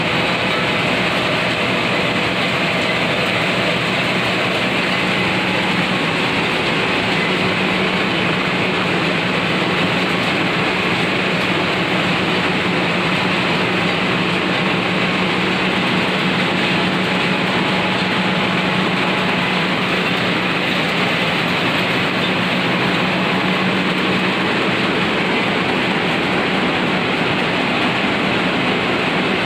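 Turmeric grinding machine running steadily: a loud, even mechanical rush with a low hum underneath.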